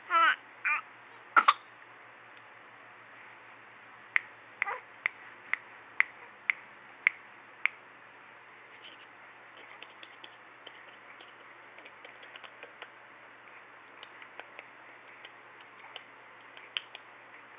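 A baby's short high vocal sound sliding down in pitch, then a second brief one. Then a run of sharp clicks, about two a second for a few seconds, followed by fainter scattered clicks.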